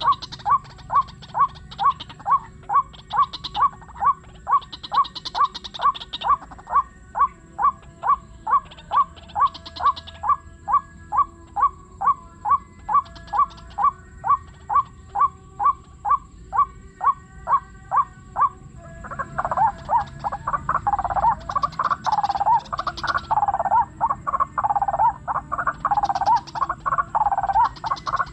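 White-breasted waterhen calls: a steady string of harsh 'kruak' notes about twice a second, changing about two-thirds of the way through to a louder, denser run of overlapping calls.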